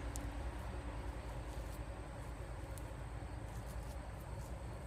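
Quiet outdoor woodland ambience: a low steady rumble with faint, scattered short high chirps of insects.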